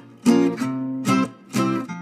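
Background music: an acoustic guitar strumming chords, about two strums a second.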